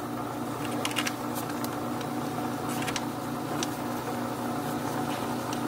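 A motor running with a steady hum made of several held tones, with a few faint clicks over it.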